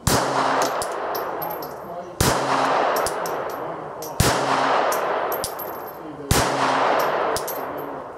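Glock 42 .380 pistol fired four times, a steady shot about every two seconds, each with a long fading echo; faint small ticks sound between the shots.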